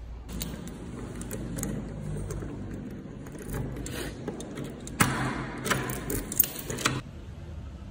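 Keys on a keyring jangling as a key is worked into a stainless-steel doorknob lock and turned to unlock the door, with a run of sharp metallic clicks about five seconds in.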